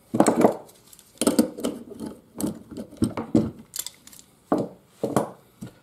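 Hammer blows on a stuck steel gearbox sprocket and shaft: about ten irregular metallic strikes, each with a short ring, to knock the sprocket loose after the puller failed to move it.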